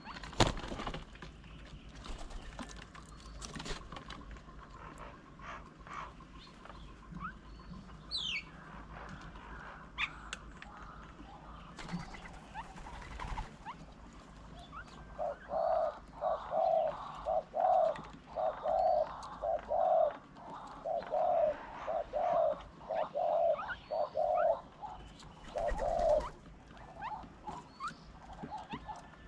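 Wild birds calling, the loudest a long run of about fifteen low, evenly spaced hooting notes, about one and a half a second, starting about halfway through. Before the hoots come scattered short chirps and one quick falling whistle.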